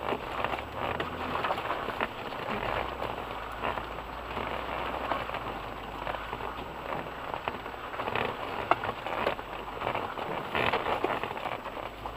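Cabin sound of an off-road 4x4 crawling along a flooded mud rut: a steady low engine drone under a crackling patter of mud and water spraying against the wheel arches and underbody.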